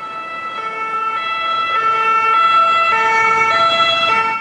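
Two-tone ambulance siren, the French "pin-pon" type, switching between a low and a higher note about every half second and growing louder as it approaches.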